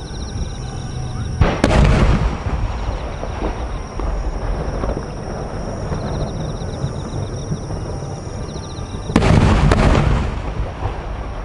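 Two large aerial firework shells bursting, about a second and a half in and again about nine seconds in. Each is a heavy boom followed by about a second of rolling rumble and crackle.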